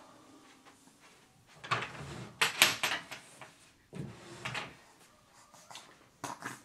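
Wooden dresser drawers sliding and knocking open and shut, in two loud bouts about two and four seconds in, with a few lighter clicks near the end.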